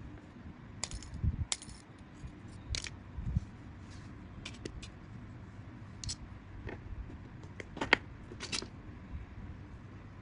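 Light metallic clicks and clinks at irregular intervals, from the thin sheet-metal blades and wire shaft of a handmade pinwheel fishing lure knocking together as it is handled in the fingers, with a few dull handling bumps.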